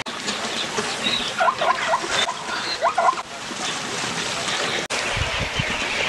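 Outdoor ambience with a steady hiss, broken by a few short, high chirping animal calls in two small clusters about a second and a half apart.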